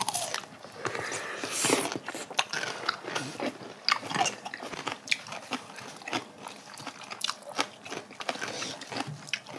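Two people chewing and biting food close to clip-on microphones: irregular crunching and wet mouth sounds as they eat spicy braised cod head and kimchi.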